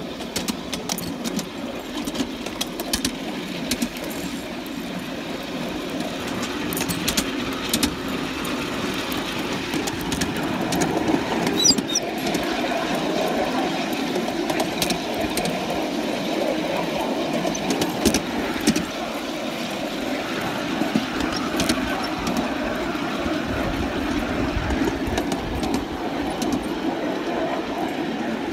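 3½-inch gauge live-steam model locomotive 'Charles' running under steam with the riding driver's car, a steady rumble of the moving train with sharp clicks scattered through. It grows a little louder about six seconds in.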